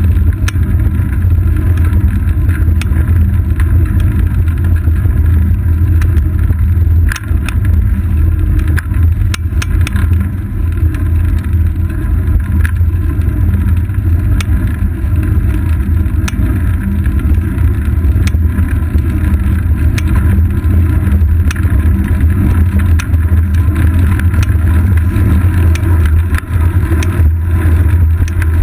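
Riding noise picked up by a GoPro in its housing on a moving bicycle's seat post: a loud, steady low rumble of wind and tyre-on-asphalt vibration, with scattered small clicks and knocks as the mount jolts over bumps in the road.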